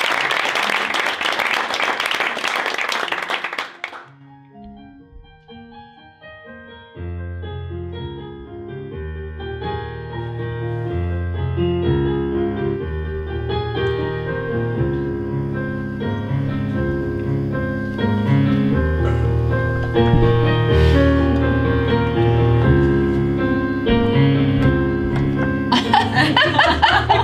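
Applause for the first few seconds, cutting off. Then solo piano music starts softly, a bass line joins a few seconds later, and it plays on steadily. Near the end a short burst of audience noise sounds over the piano.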